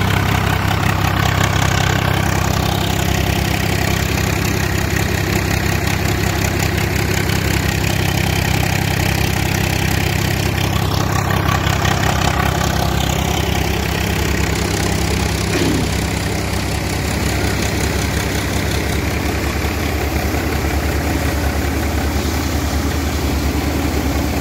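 Swaraj 744 FE tractor's three-cylinder diesel engine running steadily while it powers a wheat thresher, the thresher's drum and blower running with it in one continuous machine hum.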